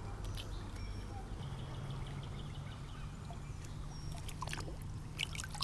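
Quiet creek-bank background: a faint steady low hum and hiss, with a few small clicks near the end as the fish is handled.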